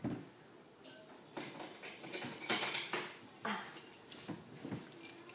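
Keys scraping and picking at the packing tape on a cardboard box in irregular short scratches, with a brief jingle of the key ring near the end.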